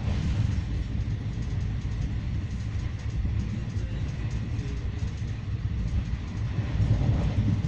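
Steady low rumble of an express train's passenger coach running at speed, heard from inside the coach: wheels on the rails and the running gear, with no distinct clickety-clack rhythm.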